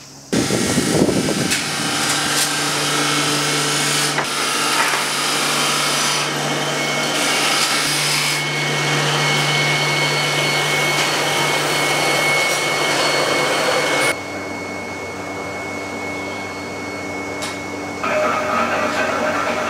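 Machinery running in a hoe-forging workshop: a steady hiss with a low hum and a thin high whine through it. It drops in level about fourteen seconds in and rises again near the end, with a few light knocks.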